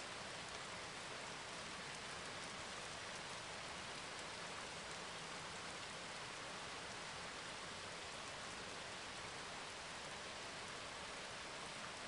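Steady, even hiss like falling rain, with no separate strokes or knocks standing out.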